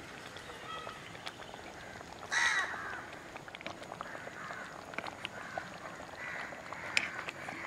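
Crow cawing: one loud caw about two and a half seconds in, then fainter caws later, over a few light clicks.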